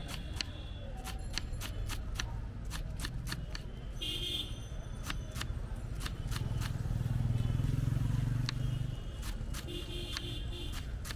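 Kitchen knife chopping green chillies on a wooden chopping board: quick, uneven taps of the blade, about two to three a second, over a low rumble that swells for a couple of seconds in the middle.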